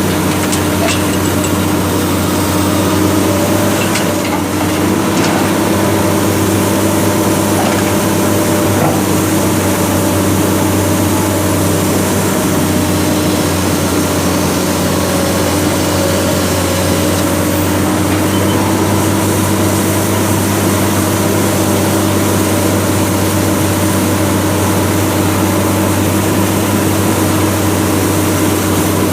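Heavy diesel engine running steadily at an even, unchanging speed, a constant low hum.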